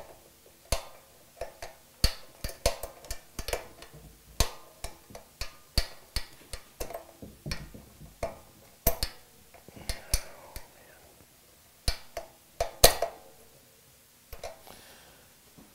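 Steel rocker shaft and rocker arms of an AeroVee engine clicking and clinking as the shaft is slid onto the cylinder head's studs over shims and the arms are shifted by hand: irregular sharp metal clicks, a few a second, the loudest one late on.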